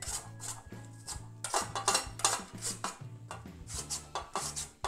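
Peeled raw potato pushed across the slicing blade of a stainless steel box grater into a ceramic bowl: quick repeated scraping strokes, about two or three a second, over background music.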